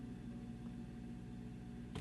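Faint, steady low hum of room tone with no other activity, and a faint click right at the end.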